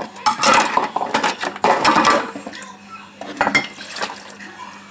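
Dishes and utensils clinking and knocking against each other in a stainless-steel kitchen sink as they are moved about. The clinks come thick and fast for the first two seconds, then thin out, with a few more knocks about three and a half seconds in.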